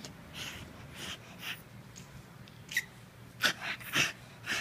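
Bull terrier puppy making its 'Tasmanian devil' play noise with its mouth open: a string of short, breathy, hiss-like bursts about every half second, with three louder, sharper ones near the end.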